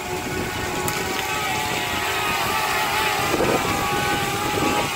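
DJI Spark quadcopter's propellers whining as it hovers in the wind, the pitch wavering as the motors adjust, over the steady hiss of heavy rain.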